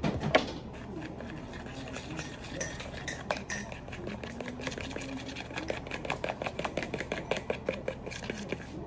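A utensil stirring pancake batter in a ceramic bowl, clicking and scraping against the bowl. It opens with a couple of louder knocks, and the taps come quicker and louder in the second half.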